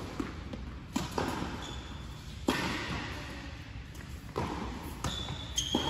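A tennis rally on an indoor hard court: racket strikes and ball bounces, sharp hits every second or two, echoing in the large hall.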